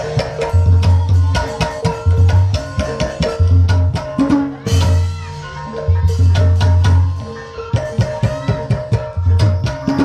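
Live gamelan-style ebeg accompaniment: quick drum strokes over steady ringing metal tones, with deep low booms repeating every second or so.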